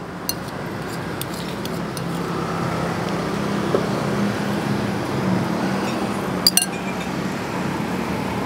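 Metal spoon clinking against a ceramic bowl as the last of the porridge is scooped up: a few light clinks in the first two seconds, then a sharp double clink about six and a half seconds in.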